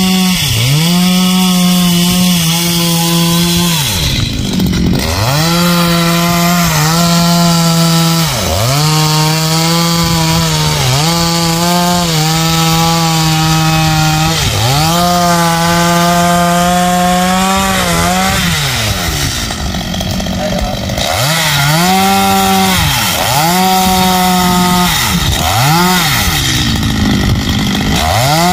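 Stihl two-stroke chainsaw cutting into a tree trunk at high revs. The engine note dips over and over as the chain bites into the wood and then picks back up, with one longer drop to a lower speed about two-thirds of the way through.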